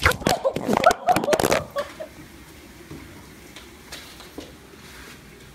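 A short burst of human laughter for about two seconds, then quiet room sound with a few faint clicks.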